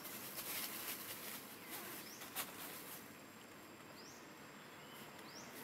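Faint outdoor ambience: a steady hiss with a few short rising bird chirps in the second half and scattered sharp clicks, the sharpest about two and a half seconds in.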